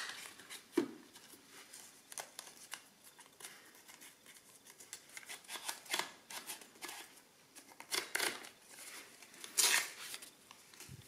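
Hands feeding a paper roll into an adding machine's printing mechanism: irregular small clicks of metal parts and rustles of paper, with a louder rustle near the end.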